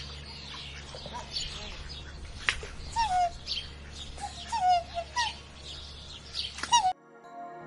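Several birds chirping and calling, mixing high quick chirps with repeated short calls that slide down in pitch. The sound cuts off suddenly about seven seconds in.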